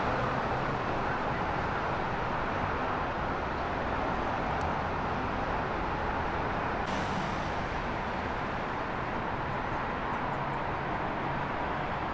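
Steady city street traffic noise: a continuous hum of vehicles running on the surrounding roads, with no single event standing out.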